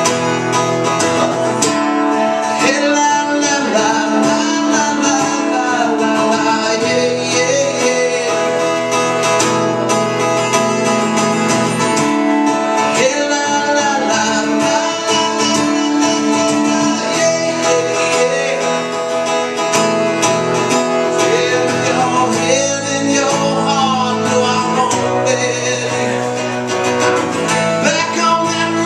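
Live acoustic guitar strummed steadily, with a man singing over it.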